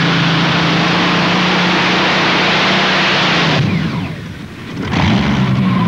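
Modified pulling tractor's engine running flat out under full load, a loud steady drone. About three and a half seconds in it is cut off and winds down with falling pitch as the pull ends. A loud rushing noise picks up again near the end.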